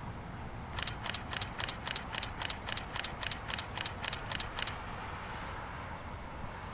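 Camera shutter firing in a continuous burst, about sixteen rapid clicks at roughly four a second, lasting about four seconds.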